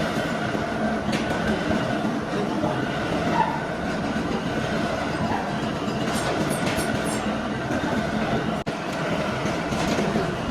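Heavy machinery running with a steady, dense rattling clatter, and a few light metallic ticks a little past halfway.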